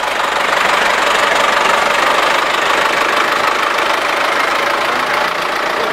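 An engine running steadily, loud and close.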